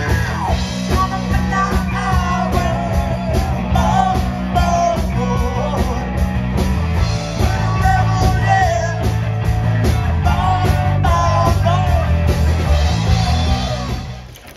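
Live rock band in a pub: a man singing into a microphone over electric guitar, bass and drums with a steady beat. The music fades out near the end.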